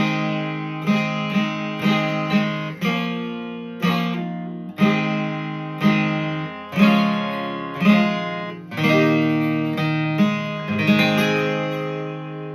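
Acoustic guitar strummed in chords, roughly one strum a second, ending on a final chord that rings out and fades.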